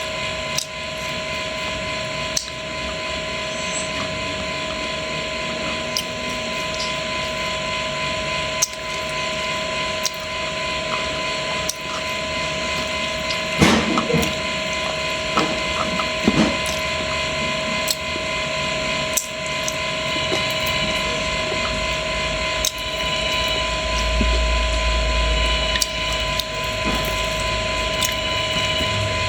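Fish frying in hot oil: a steady sizzle with scattered sharp crackles and pops, over a steady hum.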